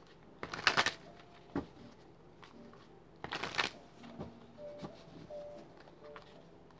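A deck of tarot cards shuffled by hand, in two short bursts about half a second and three and a half seconds in, with soft card clicks between.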